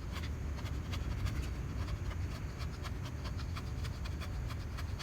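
Knife shaving thin curls off a short stick of wood to make a feather stick: a quick, irregular run of short scraping strokes over a steady low rumble.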